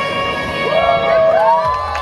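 An audience cheering, shouting and whooping while the dance music drops away underneath.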